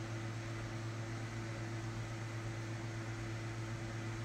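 Steady room background: a low, even electrical hum over a faint steady hiss, with nothing changing.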